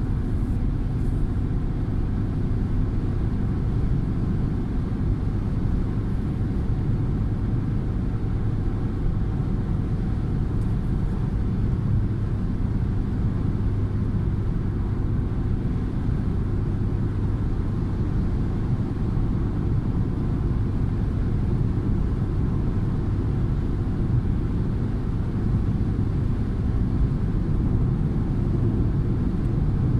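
Car cruising at motorway speed, heard from inside the cabin: a steady low rumble of tyre and engine noise.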